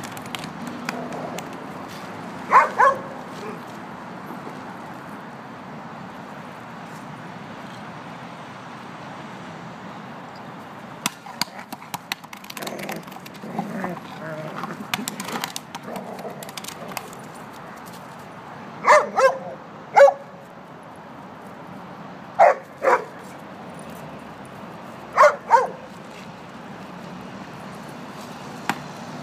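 A dog barking in short, sharp barks, mostly in quick pairs, five times over the stretch, against a steady background hum.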